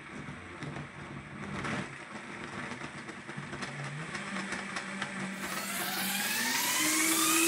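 Vitamix A3500 blender motor ramping up through its variable speeds with a 48-ounce container of frozen honeydew, cucumber and grapes in liquid, its whine stepping up in pitch about halfway and then rising steeply and growing louder toward the end as it nears top speed.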